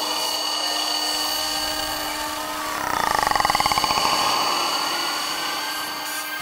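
Eurorack modular synthesizer patch holding steady electronic drone tones. About three seconds in, a rapid train of clicks comes in: an LFO square wave pinging the Make Noise QPAS filter, its ringing pitch sweeping down and then back up.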